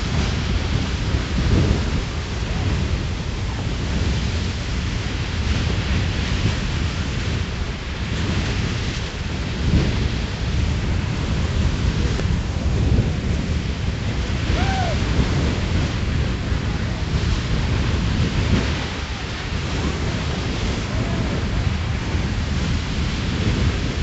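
Beehive Geyser erupting: its jet of water and steam gives a steady, deep rushing noise without a break.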